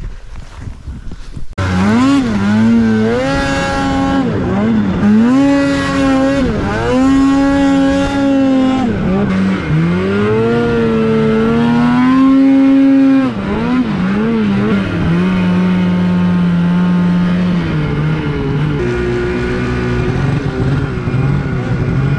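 Polaris two-stroke snowmobile engine being throttled hard. The engine comes up sharply about a second and a half in, then its pitch rises and falls over and over as the throttle is worked on and off, and it runs steadier in the second half.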